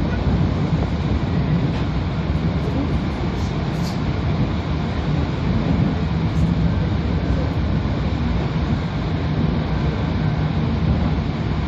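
Seoul electric commuter train running, heard from inside the carriage: a steady, even noise of the wheels on the rails, strongest low down.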